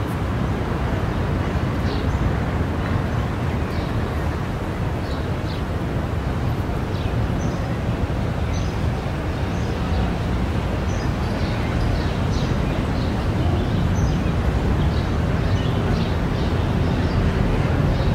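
Town-square ambience: a steady low rumble of traffic, with birds chirping in many short, high chirps over it.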